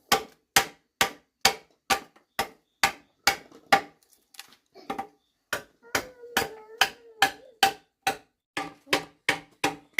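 Steady, rhythmic blows of a tool striking wood, about two sharp knocks a second, each with a short wooden ring, as a part of the wooden bicycle is being shaped.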